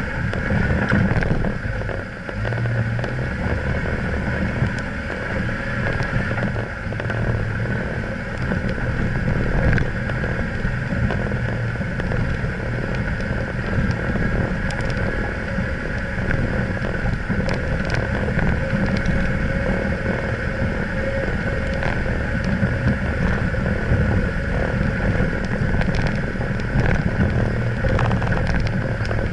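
Off-road vehicle driving slowly over a loose stony riverbed: steady engine hum with tyres crunching and many small knocks and clicks from the stones.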